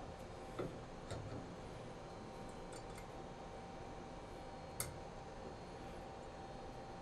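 A few soft knocks early on and one sharp click nearly five seconds in, over a faint steady hum.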